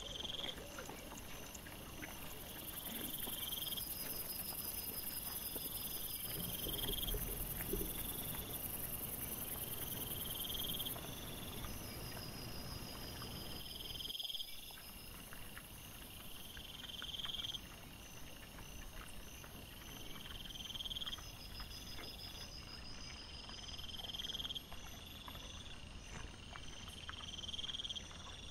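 Faint night chorus of insects: a high trill repeating about every one and a half to two seconds, with low rustling partway through.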